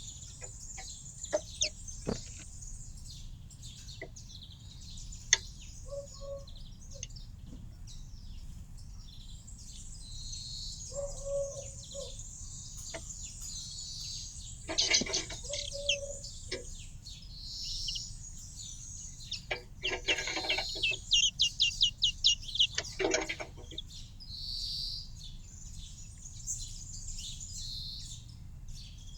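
Small garden birds chirping and twittering, with many short high calls and a quick run of repeated sharp chips about two-thirds of the way in.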